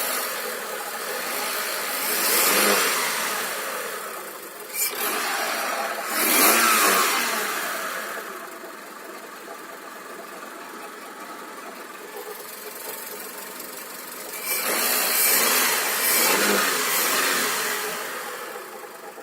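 Car engine running with a knocking noise from worn alternator bearings, swelling in loudness three times as if revved up and let back down to idle.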